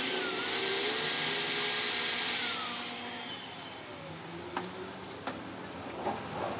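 A power tool running with a whine, then winding down, its pitch falling about three seconds in; two short clicks follow.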